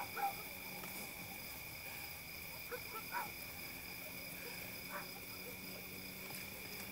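Night ambience: a steady high-pitched insect drone at two pitches, with frogs giving short calls every second or two.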